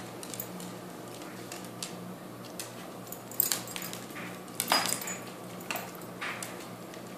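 Dogs moving on a hard wooden floor: collar tags jingling and claws clicking in scattered short bursts, the loudest about three and a half and four and a half seconds in.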